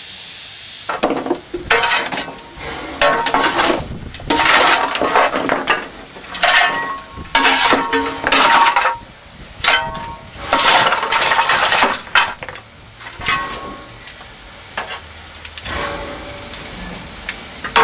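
Fireman's steel coal shovel on a narrow-gauge steam locomotive's footplate, scraping up coal and knocking against the firebox door as coal is fed to the fire. It comes in repeated, irregular strokes about a second long, some ringing metallically, over a steady background hiss.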